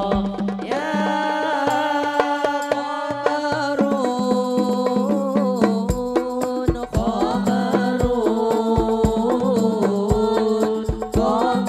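A hadrah group singing a sholawat (Islamic devotional song) to rebana frame drums: an ornamented sung melody over a steady pattern of drum strokes. Recorded straight from the mixer with its effect applied.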